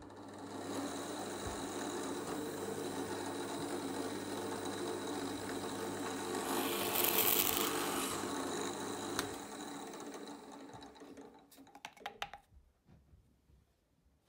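Bench drill press running at its top speed with a steady motor hum. About six and a half seconds in, the short bit cuts a pilot hole into a wooden piano key for about a second and a half, the loudest part. Near the end the motor fades as the spindle runs down, with a few clicks.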